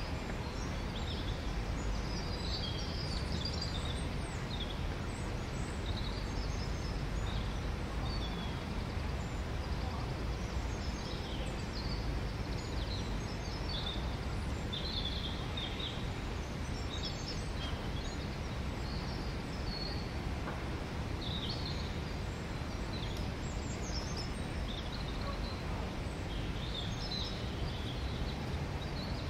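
Small birds chirping and singing in short, scattered calls throughout, over a steady low background rumble.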